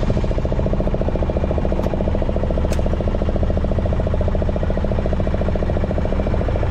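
Fishing boat's engine running steadily with a fast, even chugging.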